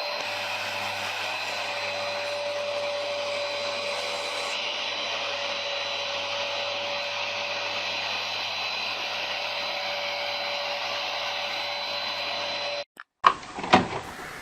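Hoover PowerDash Pet (FH50700) carpet cleaner running steadily with a constant whine. It cuts off suddenly near the end, followed by a couple of sharp knocks.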